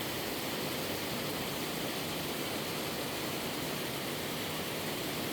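Mountain waterfall falling over rock tiers: a steady, even rush of water.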